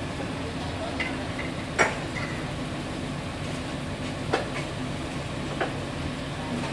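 Diesel engine of a Sumitomo crawler drilling rig running steadily, with a few sharp metallic clanks over it, the loudest just under two seconds in.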